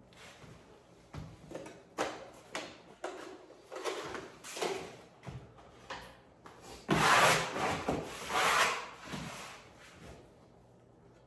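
Irregular rubbing and scraping strokes against wallpaper on a wall, the longest and loudest around seven to nine seconds in.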